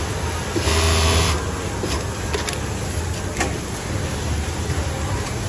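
Industrial lockstitch sewing machine running a short burst of stitches about a second in, then a few sharp clicks, over a steady low hum.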